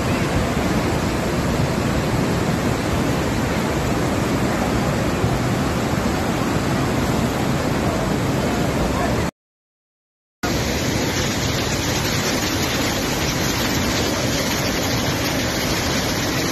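Muddy flash-flood water rushing and churning, a loud steady wash of noise. It cuts out completely for about a second roughly nine seconds in, then resumes.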